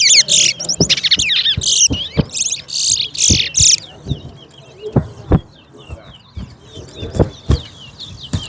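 Towa-towa (large-billed seed finch) singing in a song contest: a rapid run of loud, high, fluttering whistled phrases for about the first four seconds, then softer twittering. Scattered short knocks sound through it.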